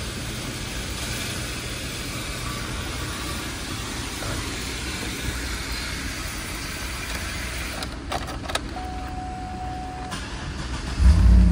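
A steady hiss, then a few clicks and a steady whine lasting about a second and a half. About a second before the end, the 2009 Cadillac Escalade EXT's 6.2-litre V8 cranks and starts, loudly.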